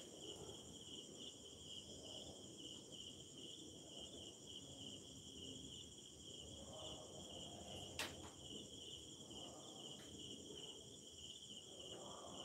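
Faint, steady chirring of crickets. A single sharp click about eight seconds in.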